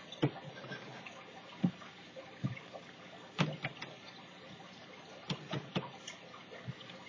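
Scattered light taps and clicks of art supplies being handled on a craft table, several short knocks spaced irregularly, a few close together near the middle.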